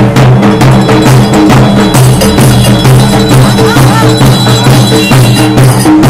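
Several steel-shelled drums beaten with sticks together in loud, fast procession drumming, with dense rapid strokes and no pause.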